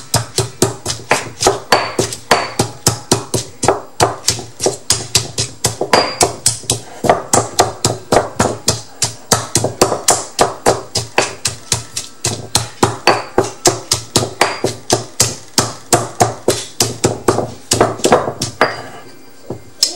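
Stone pestle pounding chilies and garlic in a granite mortar, a steady run of knocks about four a second that stops about a second before the end.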